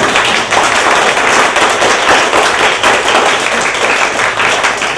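Small audience applauding, many hands clapping steadily.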